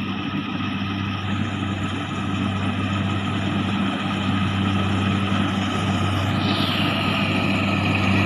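An engine running steadily, slowly growing louder, with a high whine that falls in pitch about six and a half seconds in.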